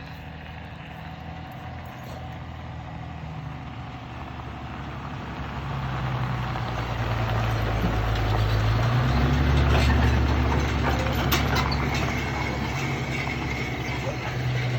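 Diesel engine of an approaching heavy machine, growing louder over several seconds and loudest about two-thirds of the way in, with metallic clanks and a high squeal as it comes close.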